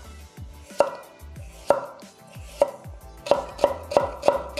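Kitchen knife cutting carrot on a cutting board. A few separate cuts come about a second apart, then they quicken to a steady chop of about three cuts a second near the end.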